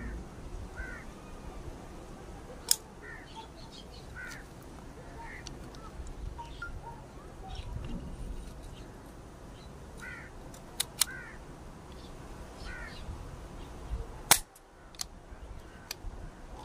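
A few sharp clicks, the loudest about fourteen seconds in, from the metal parts of a TT 30 bore pistol being worked by hand. Short chirping bird calls repeat in the background.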